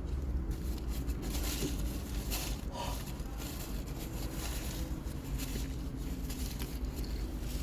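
A person chewing and eating a chicken sandwich, with short crinkly noises, over a steady low rumble.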